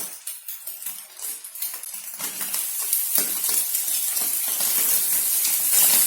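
A spatula clicking and scraping in a frying pan, then frying sizzle that swells louder from about two seconds in as the egg and fillings are stirred in hot oil.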